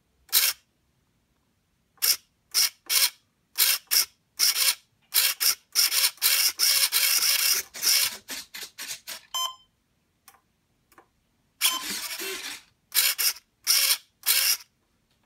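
Hobby RC servo running in many short bursts, each a fraction of a second, with a longer stretch of about two seconds near the middle and another of about a second later, as it drives a single-servo dual-hinge flap up and down.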